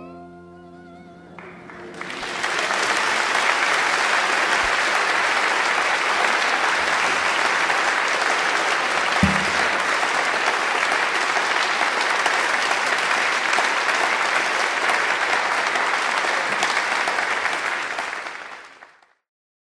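The song's last sustained note fades away. Then a hall audience applauds steadily for about sixteen seconds, with a single thump about nine seconds in, before the applause fades out quickly.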